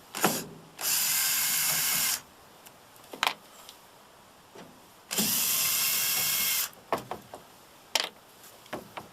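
Cordless drill-driver running in two short bursts, about a second and then a second and a half long, backing out the screws that hold a taillight housing. Sharp clicks and knocks of handling come between and after the bursts.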